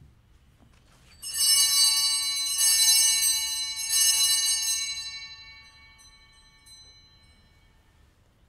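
Altar bells (a cluster of small Sanctus bells) rung in three shakes about a second and a half apart, then ringing out and fading, marking the elevation of the host at the consecration.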